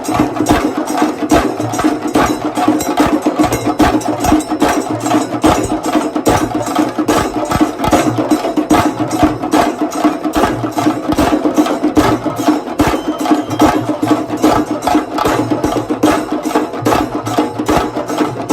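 Chenda drumming: sticks beaten on the drumheads in a fast, steady, unbroken rhythm of dense sharp strikes.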